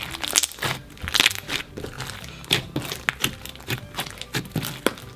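Blue slime mixed with foam beads being squeezed and kneaded by hand, giving an irregular run of small crackles and pops.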